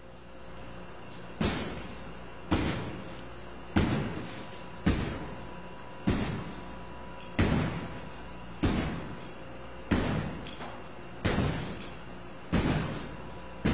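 About ten blows, roughly one every 1.2 seconds, kicked and struck against a glass door pane covered in security window film. Each is a slam with a short ringing decay. There is no sound of glass falling out: the cracked pane stays held in its frame by the film and its attachment system.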